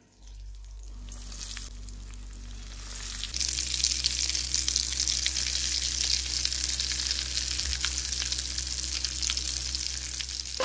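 Food frying in hot oil, a steady sizzle that gets louder about three seconds in, with a faint low hum beneath.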